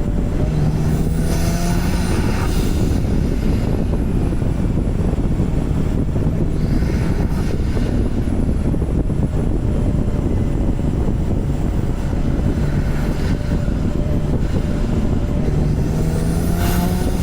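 Porsche 991 Turbo's twin-turbo flat-six running under way over steady road noise, with the engine pitch rising twice: about half a second in and again near the end.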